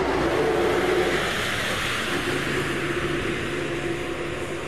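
An engine running steadily, with a low hum that drops out briefly about halfway through and comes back, under a steady broad hiss.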